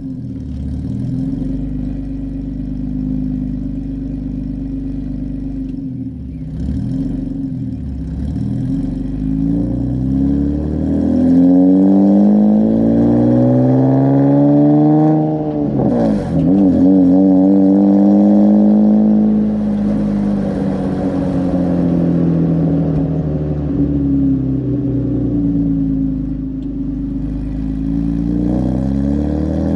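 Nissan 370Z's 3.7-litre V6 with PPE headers, driving under varying throttle. Its revs climb, fall quickly about halfway through, climb again, then sag and rise once more near the end.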